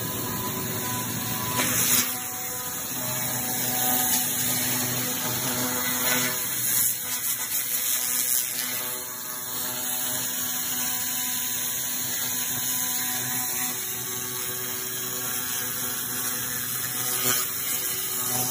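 Handheld fiber laser cleaning head, set to 1200 W, blasting scale off a steel block: a steady loud hiss with an even hum beneath and a few sharp crackles.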